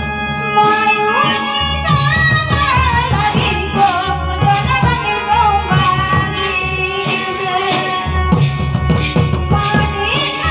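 Mundari folk song: a sung melody over a steady drum beat of about two strokes a second.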